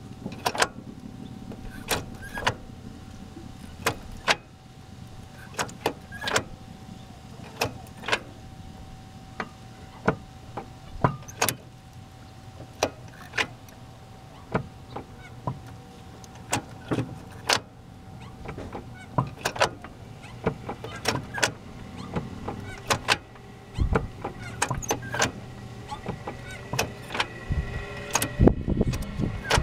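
Gear shift linkage on a 2013 Dodge Dart's manual transmission clicking and clunking as it is worked through the gears: sharp, irregular clicks, roughly one a second, over a steady low hum.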